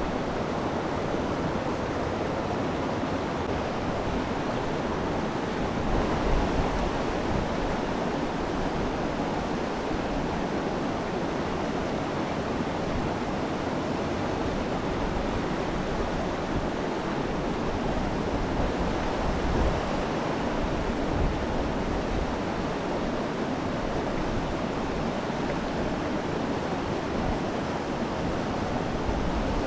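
Steady rush of creek water flowing over its currents and eddies.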